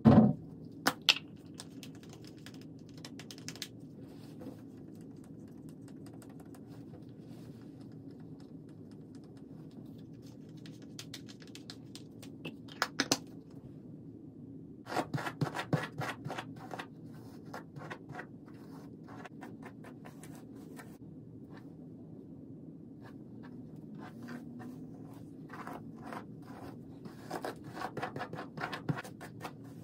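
Scratchy rubbing and small clicks of personal grooming: a deodorant stick being handled about halfway through, and a hairbrush drawn through long hair in short strokes near the end. A faint steady low hum lies underneath.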